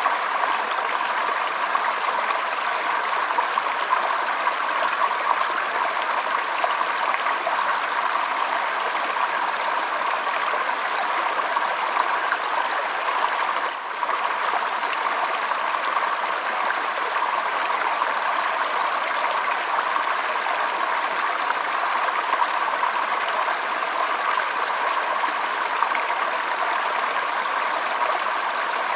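Water running steadily in a stream, a continuous even rush with a brief dip about halfway through.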